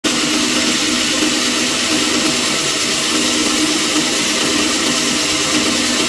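Bandsaw running and cutting lengthwise through a wooden board: a steady, even machine noise with a constant low hum underneath.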